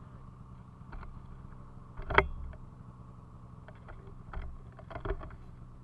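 Snowmobile engine idling with a steady low hum, and a few sharp knocks and clacks on top. The loudest knock comes about two seconds in, and two smaller ones come near the end.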